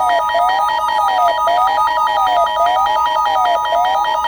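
Emergency Alert System-style attention signal, the alert that heralds a warning message. A steady two-tone alarm just under 1 kHz (the EAS 853 and 960 Hz pair) is layered with a siren-like tone sweeping up and down about once a second and a fast pulsing beep.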